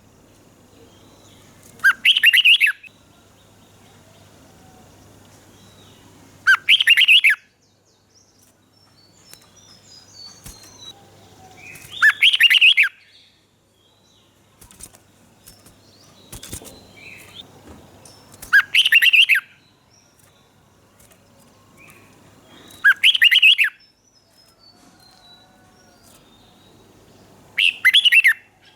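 Red-whiskered bulbul singing: six short, loud, bright song phrases, each under a second and spaced about four to six seconds apart, with fainter chirps in between.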